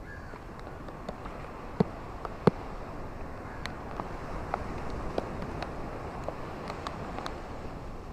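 Ocean surf washing steadily on a beach, with scattered sharp clicks and ticks, two louder ones about two seconds in.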